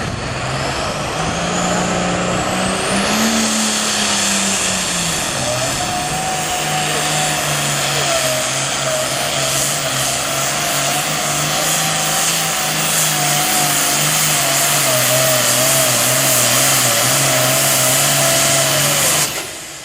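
Super Farm class pulling tractor's turbocharged diesel engine running flat out through a pull. A high turbo whistle climbs over the first few seconds, then the engine holds a loud, steady note until it cuts off abruptly near the end.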